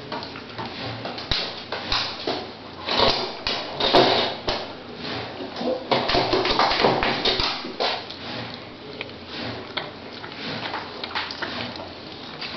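Newborn Jack Russell Terrier puppies suckling and snuffling at their mother, with irregular small wet clicks and rustling against the blanket, louder about three to four seconds in and again around six to seven seconds in.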